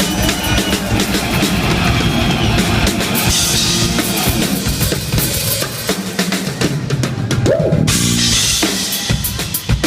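Rock drum kit played live as a solo feature: fast bass drum, snare and tom strokes with cymbal crashes.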